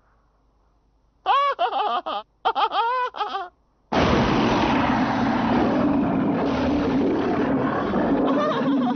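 Cartoon soundtrack: two short bursts of wavering, high cries, then from about four seconds in a loud, dense noise like an explosion or crash that keeps on for about five seconds.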